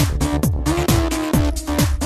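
Electronic dance music with a steady kick drum beat, a little over two beats a second, under sustained synth tones.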